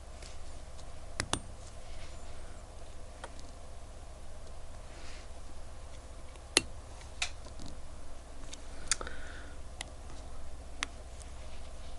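Scattered small sharp clicks and taps of a quartz wristwatch and small tools being handled during repair, the loudest a quick double click about a second in and a single one about six and a half seconds in. A steady low hum runs underneath.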